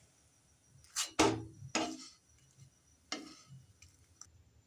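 A steel spatula knocking against a nonstick frying pan as a stuffed paratha is turned over. There are three quick clinks between one and two seconds in, then one more about a second later.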